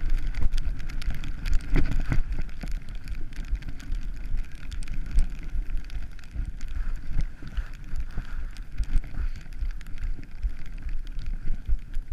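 Wind buffeting the camera microphone while skiing downhill at speed, a steady low rumble, with the hiss and scraping chatter of skis running over packed snow.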